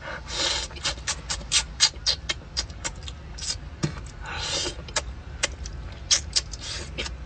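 Close-up eating sounds of a man chewing braised turbot: wet lip-smacking and chewing clicks, several a second, with a few short slurps.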